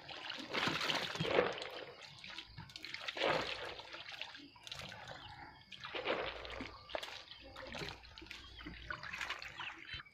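Many farmed frogs stirring and splashing the water of a crowded frog pond, in uneven bursts of splashes that rise and fall.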